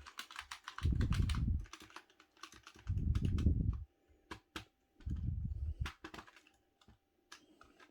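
Keys of a Razer Huntsman Tournament Edition keyboard, with Razer optical linear red switches, being pressed and released in quick irregular clicks. Three stretches of low rumble, each about a second long, are the loudest parts.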